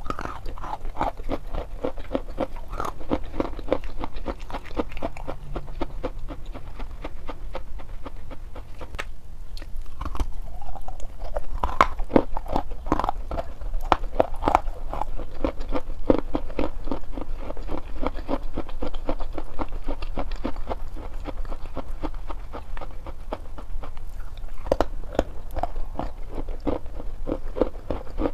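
Pieces of chalk being bitten and chewed: a dense, continuous run of short crunches.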